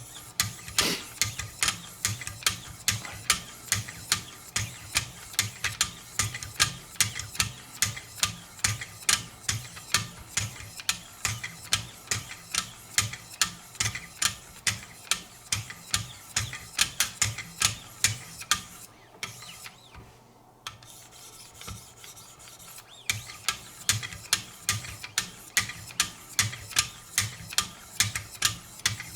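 Wicked Edge guided sharpening system's 1500-grit stones stroked along a knife blade, rasping at about two strokes a second. The strokes stop for a few seconds about two-thirds of the way through, then start again.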